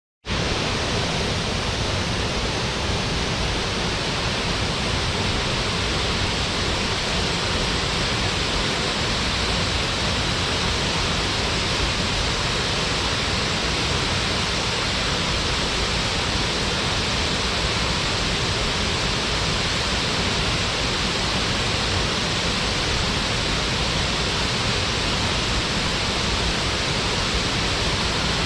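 Waterfall: water falling steadily into a plunge pool, a constant even rushing roar with no change.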